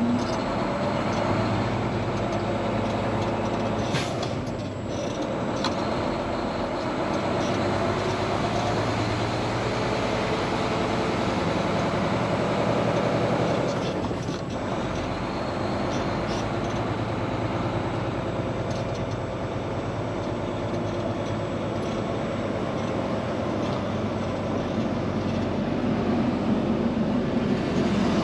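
Diesel engine of a Volvo semi truck running inside the cab as the truck rolls slowly, a steady drone that dips briefly twice, about four and fourteen seconds in.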